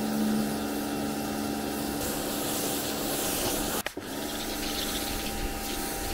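Pressure washer spraying water over a steady motor-pump hum. The spray and hum cut out for a split second about four seconds in, then start again.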